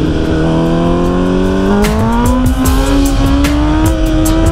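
Sport motorcycle engine pulling under steady acceleration, its pitch rising slowly and evenly without a gear change. A few short clicks are heard over it from about halfway through.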